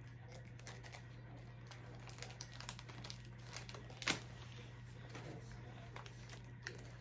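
Faint clicks and light rustling of small parts and packaging being taken out of a box by hand, with one sharper click about four seconds in, over a steady low hum.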